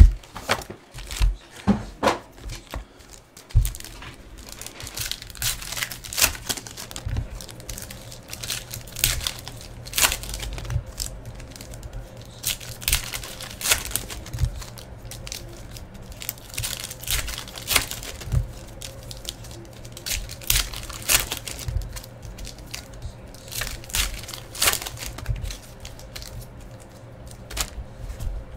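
Foil trading-card packs (2016 Panini Prizm UEFA Euro) being torn open and crinkled by hand, a run of irregular crackling rips.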